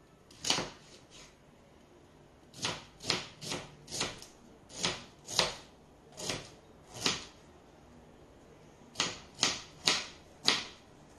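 Kitchen knife slicing a fennel bulb on a wooden cutting board: about a dozen separate chops at an uneven pace, each stroke knocking the board, with a short pause about two-thirds in.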